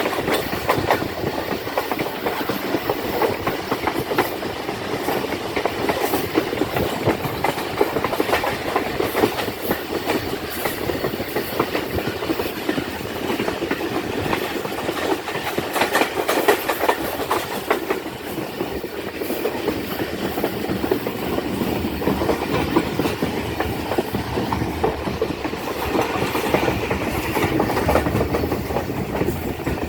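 Pakistan Express passenger train running along the track: a steady rumble with frequent clicks of the wheels clattering over rail joints.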